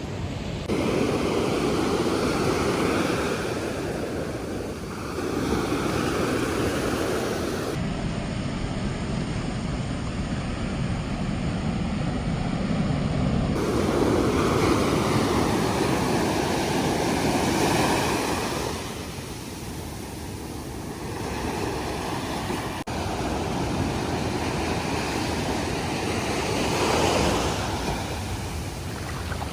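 Ocean surf breaking on the beach and washing up the shore, swelling and fading in surges every few seconds.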